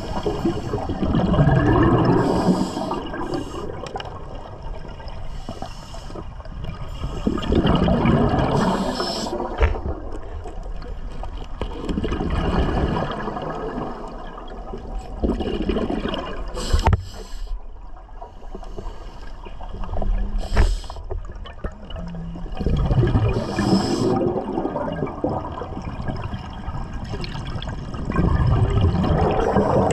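Scuba diver breathing through a regulator underwater: a burst of exhaled bubbles gurgling about every five seconds, with short hisses between.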